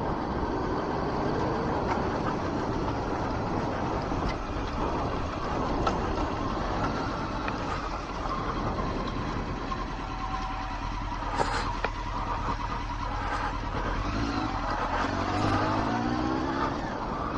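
Honda CBR900RR Fireblade motorcycle's inline-four engine running at low road speed, with wind noise on the microphone. Near the end the engine note rises as the bike accelerates.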